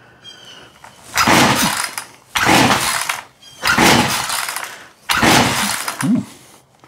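Husqvarna 142 two-stroke chainsaw being pull-started on part choke: four pulls of the recoil starter cord, each about a second long and evenly spaced, with the engine cranking but not catching.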